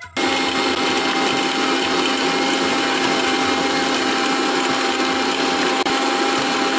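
Electric mixer grinder running at full speed, its blade grinding roasted peanuts in a stainless steel jar: a loud, steady motor noise with a constant hum that starts abruptly just after the beginning, with one brief dip near the end.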